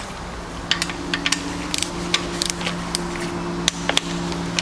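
Irregular sharp ratcheting clicks from a torque wrench as the valve body bolts of a Chrysler 62TE transaxle are tightened to 53 inch-pounds. A steady low hum runs underneath.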